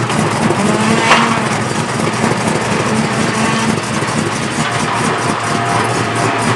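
Square-body Chevrolet pickup's engine idling as the truck rolls down the trailer ramps, with a single sharp clank about a second in.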